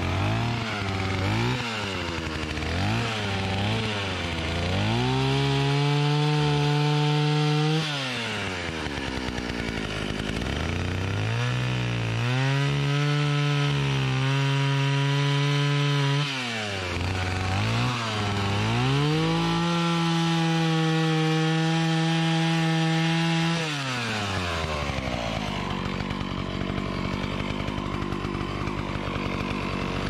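Old Stihl 041 AV Super two-stroke chainsaw cutting into a tree trunk. Its throttle is blipped about once a second at first, then it runs three long cuts at full throttle, each dropping back to idle, and it idles steadily near the end.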